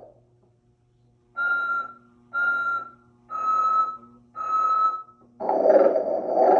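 Animated Sleeping Santa figure's recorded snore-and-whistle routine, played through its small speaker: four short whistled notes about a second apart, the last two a little lower in pitch, then a loud snore starts near the end. A faint low hum runs underneath.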